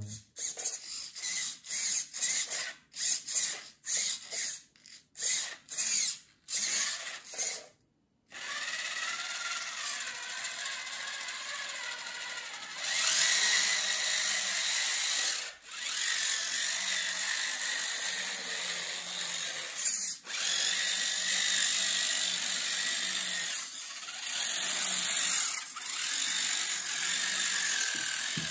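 Small geared electric drive motor of a homemade RC mini tractor whining. It is switched on and off in a dozen or so short bursts at first, then runs steadily with a few brief dips, louder for the second half.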